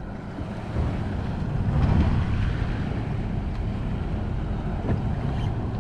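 Steady wind buffeting the microphone and choppy water, over a low steady rumble.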